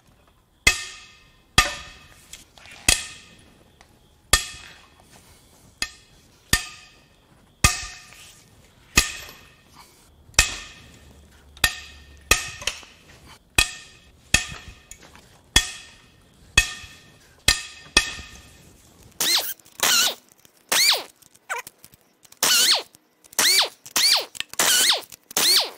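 Sharp metallic cracks, each ringing briefly, about one a second, as a long breaker bar works the cylinder head bolts of a Nissan VQ35HR V6. From about 19 seconds in, a handheld impact wrench runs in short bursts that rise and fall in pitch, spinning the head bolts out.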